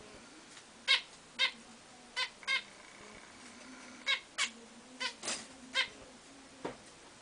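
Zebra finches calling: about nine short, sharp calls at irregular intervals.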